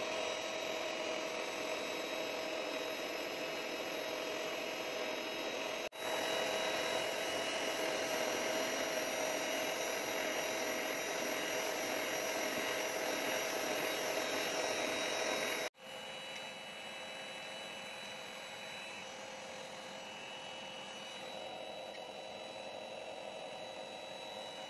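Electric hand mixer running steadily at high speed, its beaters whipping thick cake batter in a bowl. The sound cuts off abruptly twice, and after the second break a quieter steady hum carries on.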